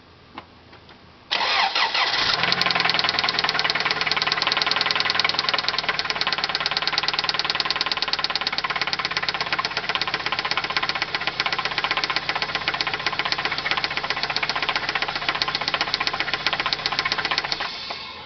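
Toyota Celica GT engine starting about a second in, then running with a fast, steady knock before it is shut off near the end. The knock persists on fresh oil after the engine had run itself low on oil.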